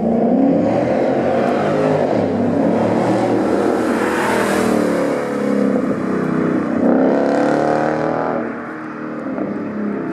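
A sports car accelerating hard past, its engine revs climbing and dropping with gear changes. It is loudest as it passes about four to five seconds in, revs up once more, then fades as it pulls away.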